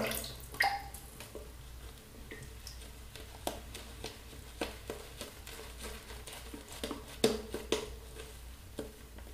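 Boar-bristle shaving brush working a dense shave-soap lather on the face: faint, irregular wet brushing with scattered small clicks and squishes.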